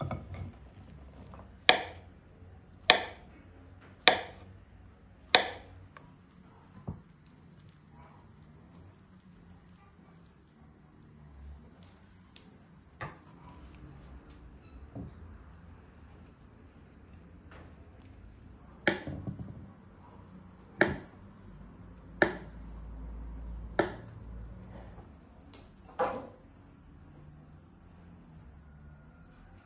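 Single knife strokes knocking on a wooden cutting board as fruit is sliced, a second or two apart: four near the start and five more in the second half. Under them runs the steady, high-pitched drone of insects.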